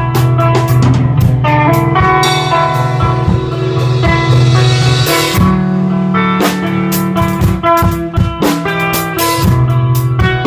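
A live band playing in a rehearsal room: a drum kit and an electric guitar together. About five seconds in the drums drop out for roughly a second, leaving a held guitar note, then come back in.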